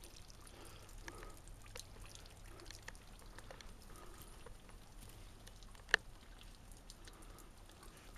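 Wet snow falling outdoors, with faint patter and scattered soft drip-like ticks. One sharp click about six seconds in.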